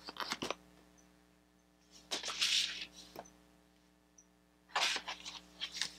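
Cardboard and card stock being handled: a large card insert is lifted out of a cardboard subscription box, giving three short rustling, scraping patches with a few clicks. A faint steady hum sits underneath.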